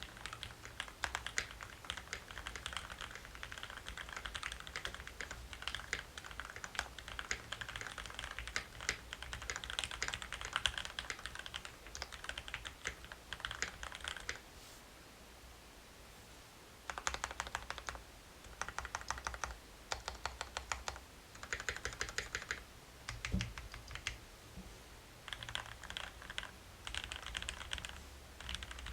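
Typing on a modded Keychron Q3 mechanical keyboard: a steady, rapid clatter of keystrokes for about fourteen seconds, a pause of a couple of seconds, then several shorter bursts of typing with brief breaks between them.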